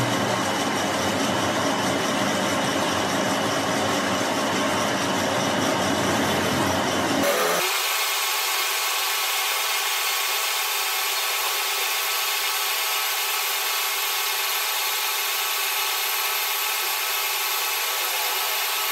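Manual lathe running while its cutting tool faces a large spinning metal disc under coolant, a steady machining noise of scraping and whirring. About seven seconds in, the deep part of the sound drops out abruptly, leaving a thinner, ringing tone.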